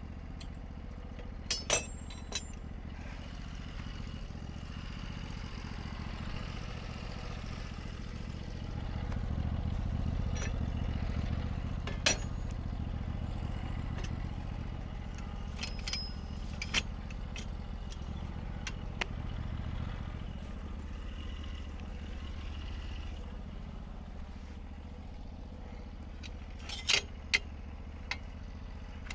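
Sawmill engine idling steadily, a little louder for about ten seconds in the middle, with scattered sharp metal clanks and clicks as the log is clamped down on the mill.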